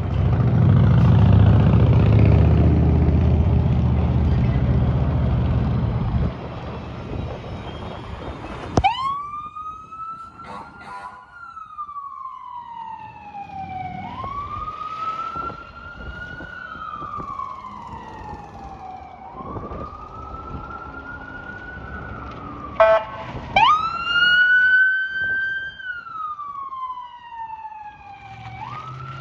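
Fire engine air horn giving a loud, steady low blast for about six seconds, cutting off sharply. Then an electronic siren wails, rising and falling in slow sweeps about every five seconds, with a brief burst of quick chirps a little over twenty seconds in.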